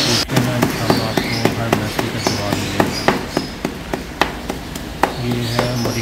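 Repeated sharp knocks, each with a short ring, coming irregularly about two a second: something hard being struck or pounded.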